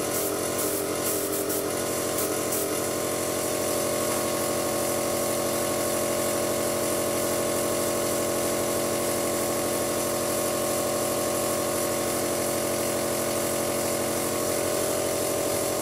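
Small airbrush compressor running with a steady electric motor hum, with a steady hiss of air over it.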